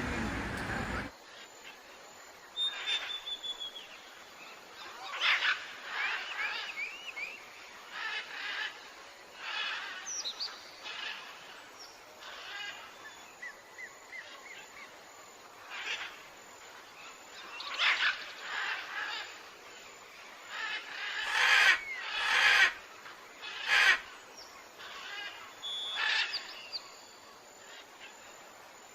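Birds chirping and calling outdoors in many short notes that bend up and down in pitch. A few loud sharp knocks come about three quarters of the way through.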